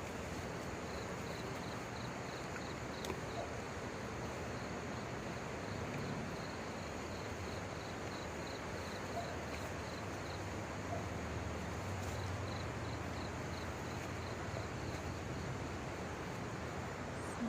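An insect chirping in an even pulse, about three short high chirps a second, stopping and starting a few times, over a steady outdoor hiss.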